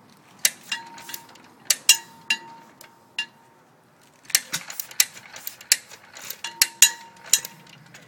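1928 John Deere Type E 1.5 HP engine's mechanism clicking and clacking irregularly, with metal-on-metal clicks, some leaving a brief ringing tone. A scattered run of clicks comes first, then a short pause about halfway, then a quicker cluster.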